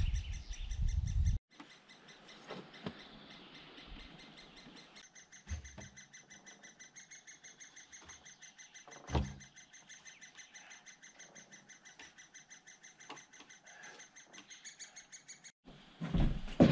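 Woodpecker calling: a faint, fast, even run of high chirps, about six a second. A low rumble fills the first second and a half, and there is a low thump about nine seconds in.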